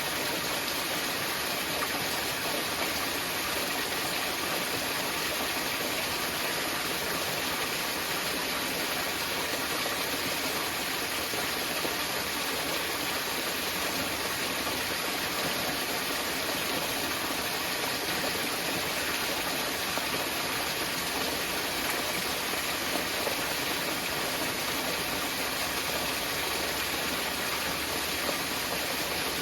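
Small mountain waterfall, water falling and splashing in a steady, unbroken rush.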